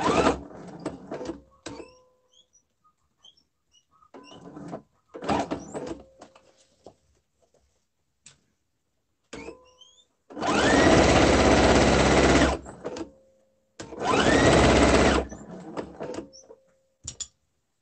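Electric sewing machine stitching in stop-start runs, the two longest, about two seconds and a second and a half, past the middle; each run opens with a motor whine rising as the machine comes up to speed. Quieter gaps with small clicks fall between the runs.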